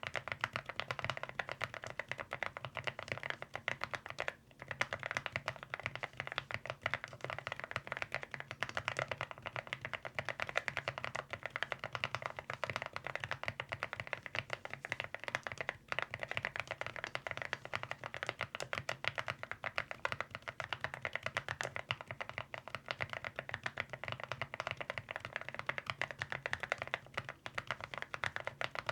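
Continuous fast typing on an AULA F99 mechanical keyboard with Akko Bitter Sweet tactile switches and MOA-profile keycaps: a dense stream of fairly low-pitched key clacks. It pauses briefly about four and sixteen seconds in.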